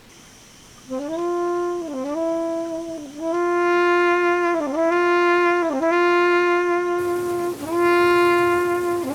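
A solo wind instrument with a brass-like tone, coming in about a second in and playing one held note again and again, each note bending briefly down in pitch at its start.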